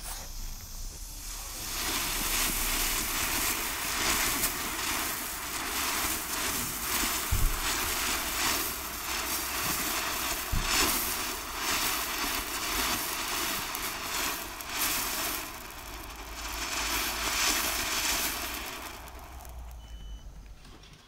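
A small 16 mm Chinese ground firework fountain burning: a dense spray hiss full of popping and crackling from its bursting stars, with a few louder pops. It builds up about two seconds in and dies away near the end.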